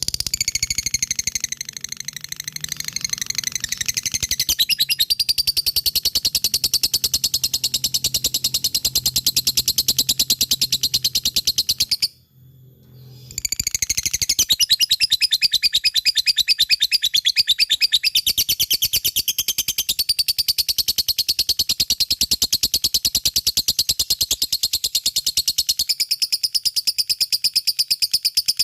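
Lovebird singing 'ngekek', a long unbroken run of very rapid, high chattering notes. It breaks off for about a second near the middle, then carries on.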